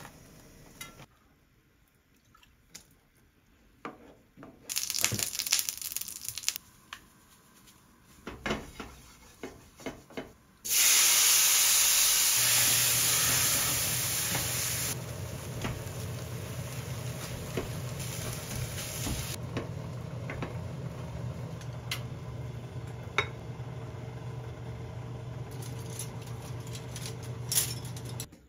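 Kimchi hits a hot frying pan about ten seconds in with a loud sizzle that slowly settles to a steady frying hiss, while a spatula taps and scrapes the pan. A steady low hum comes in a couple of seconds after the sizzle starts; before it there are only small kitchen clicks.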